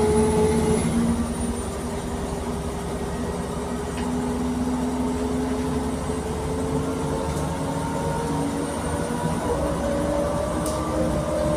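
Cabin noise of a 2007 MAN NG313 CNG articulated city bus under way: a steady rumble from the gas engine and drivetrain with whining tones that slowly rise in pitch.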